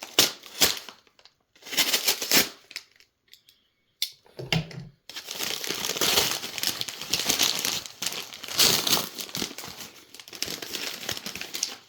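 Shipping packaging being torn open and handled: irregular crinkling and tearing, with a short pause, a dull thump about four and a half seconds in, then steady crinkling for the rest.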